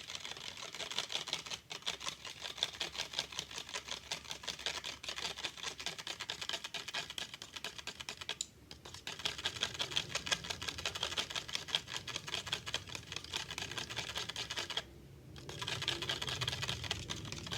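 An egg being beaten by hand in a bowl: a utensil clicks rapidly and steadily against the sides, with two brief pauses, about halfway through and near the end.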